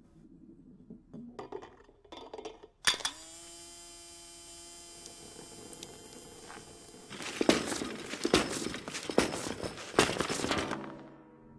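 Car parts knocking into one another in a chain reaction. First a few light clicks and taps, then a sharp strike about three seconds in that leaves a ringing tone dying away over about four seconds, then a run of sharp clattering knocks that stops shortly before the end.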